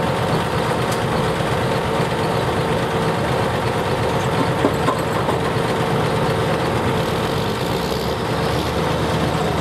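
Modified super/pro stock pulling tractor's engine idling steadily at the end of its pull.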